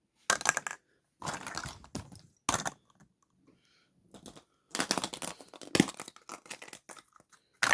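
Plastic surprise egg and its wrapping being handled and opened: irregular clicks and crinkling in short bursts with brief pauses.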